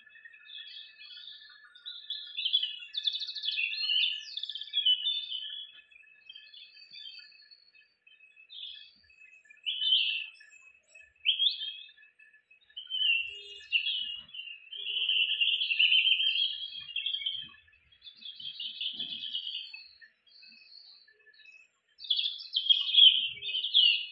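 Birds chirping and calling in short irregular bursts with quick rising notes, over a faint steady high-pitched tone.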